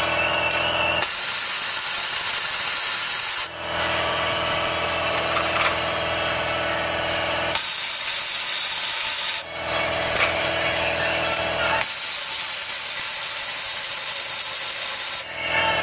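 Air-fed cavity-wax spray gun hissing through a long extension wand inside a box-section chassis rail, in three bursts of two to three and a half seconds that start and stop abruptly. A steady pitched hum carries on between the bursts.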